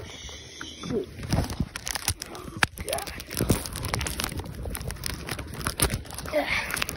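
Close rustling and crinkling with scattered clicks and knocks: a phone duct-taped to the chest, its microphone rubbing against clothing and tape as the wearer moves.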